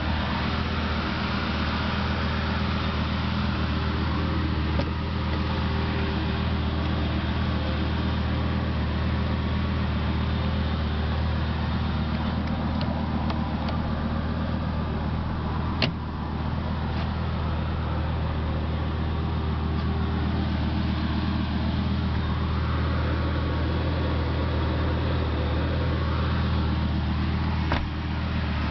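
A vehicle engine idling steadily with an even low hum. There is a sharp click about halfway through and a lighter knock near the end.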